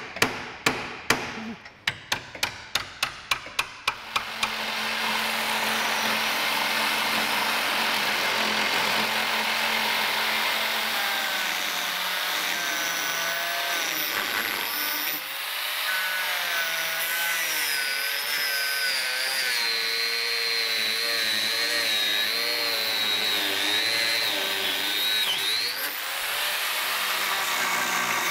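A hammer striking the suspension in a quick run of blows for about the first four seconds, then an angle grinder with a cut-off disc running steadily as it cuts through seized rear suspension arm bolts, its whine wavering as the disc bites.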